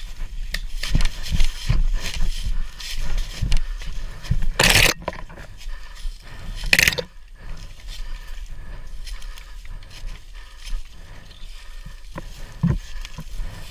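Rustling, scraping and crunching of a player moving through brush and grass close to the microphone, with uneven low thumps and two short, loud swishes about five and seven seconds in.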